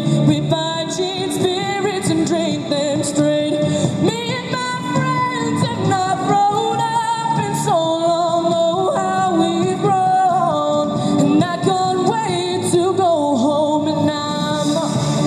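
A young woman singing a slow song with long held notes into a microphone, amplified through a small street busking speaker over a musical accompaniment.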